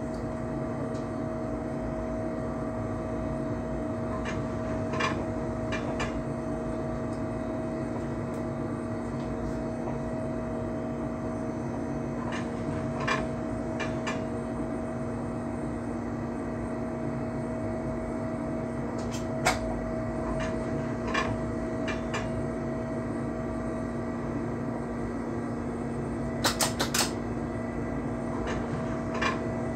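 Inside the cab of a moving electric train: a steady two-note electric hum from the running gear, with a few sharp clicks from the wheels crossing rail joints and points, the last ones a quick cluster near the end.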